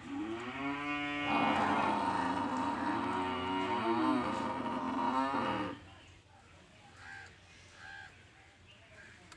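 Cattle mooing: one long, loud call of about five and a half seconds that wavers in pitch and then breaks off. After it come a few faint short calls.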